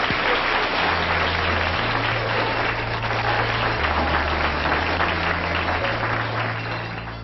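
Audience applauding: a dense, steady patter of many hands clapping. From about a second in, low bass notes of music change about once a second beneath it.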